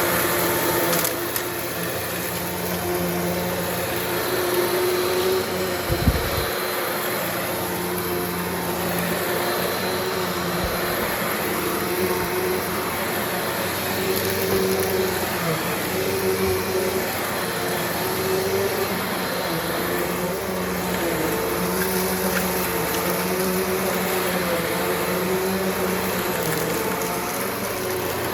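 Eureka Alimta vacuum cleaner running steadily while vacuuming, its motor pitch wavering slightly as it is pushed about. A brief low thump about six seconds in.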